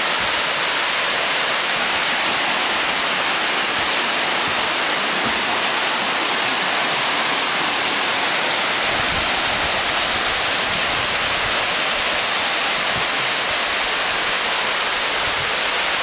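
Tall waterfall cascading over rock: a loud, steady rush of falling water, with some low rumbling added from about nine seconds in.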